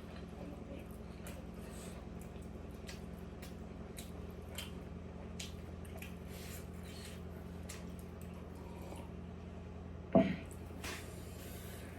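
Faint wet eating sounds, with chewing and small clicks from mouth and utensils, over a steady low hum. One short, loud sound breaks in about ten seconds in.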